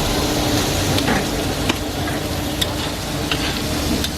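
Fried rice sizzling in a hot wok as it is stirred, with about five sharp knocks of the metal spatula on the wok.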